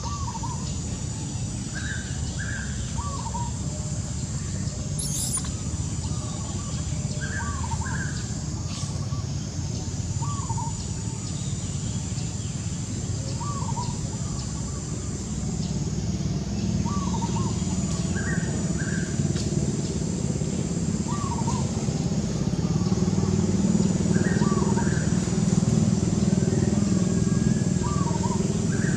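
Low engine rumble of a motor vehicle, growing louder in the second half, with a bird repeating short chirping calls every second or two.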